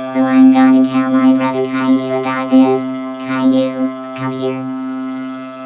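Synthesizer music: a steady held chord with quick short notes played over it, the notes thinning out after about four seconds.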